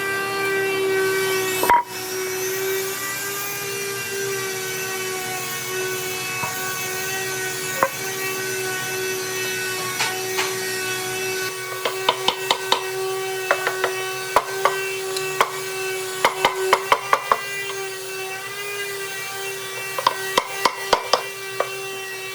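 A woodworking power tool running with a steady high whine, working wood. From about halfway in come quick clusters of sharp clicks and taps.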